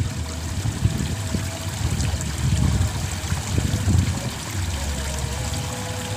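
Water trickling in a small irrigation ditch, under an uneven low rumble.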